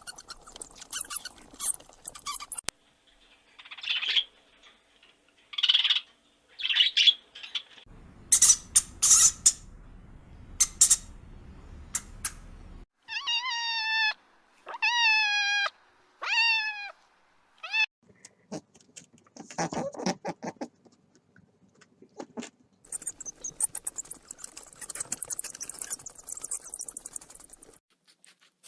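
A string of short animal calls: high squeaks, then four mewing cries that each bend up and down in pitch, like a kitten's meows. Clicking and crackling noise comes between them.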